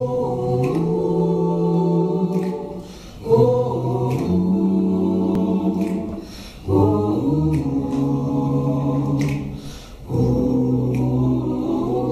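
Mixed-voice a cappella group singing wordless sustained chords in four phrases of about three seconds each. The voices ease off briefly between phrases, and faint short clicks sound over the chords.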